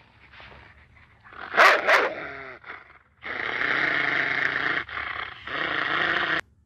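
Dog vocalising: two sharp bark-like sounds about one and a half and two seconds in, trailing off with falling pitch, then a long, steady, rough sound in two stretches with a short dip in the middle, cutting off abruptly near the end.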